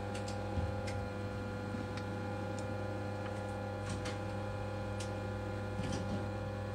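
Steady machine hum from the screen-separator hot plate with its vacuum suction running, with scattered light ticks and clicks at irregular intervals as a brass wire is worked between the LCD and the digitizer glass.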